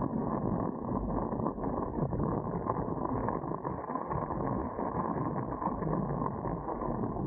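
Dart 18 catamaran under sail: a steady, uneven rush of wind buffeting the camera's microphone mixed with water noise from the hulls.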